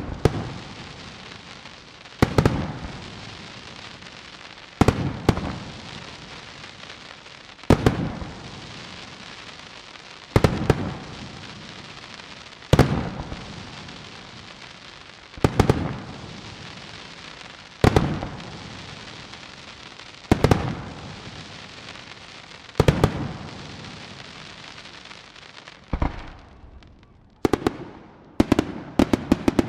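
Aerial firework shells bursting about once every two and a half seconds, each a sharp bang that trails off slowly. Near the end the bangs come in a rapid string.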